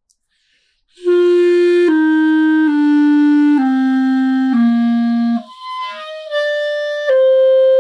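Clarinet played low in its range: a slow line of held notes stepping downward, then the tone weakens and breaks up to a much higher pitch before two higher notes follow. It is played with the A-flat key not covering its tone hole fully, as a swollen pad causes, and the leak makes the low notes act as if the register key were open.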